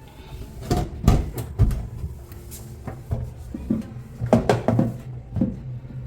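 Kitchen clatter: a string of irregular knocks and bumps, like cupboard doors, pots and utensils being handled, over a faint steady low hum.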